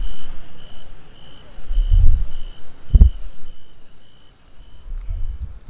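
Crickets chirping in a steady pulse about twice a second, with higher faint trills, under a few loud low thuds. About four seconds in the chirping stops and a hiss with small clicks takes over.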